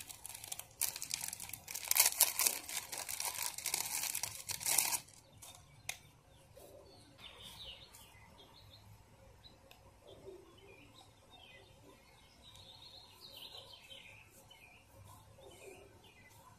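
Plastic packaging crinkling and tearing for about five seconds as a paint brush is unwrapped, then a single click and faint bird chirps.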